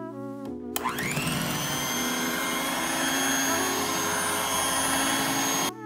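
Electric hand mixer running at high speed in stiffly whipped cream, coming up to speed with a rising whine about a second in and cutting off suddenly near the end. The cream is being beaten on past the whipped stage so it breaks and releases its liquid to become butter.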